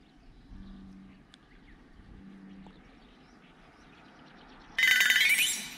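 Quiet open-air background with a low droning animal call, repeated three times, each call about half a second long. About five seconds in there is a sudden loud burst, under a second long, with a falling whistle that fades out.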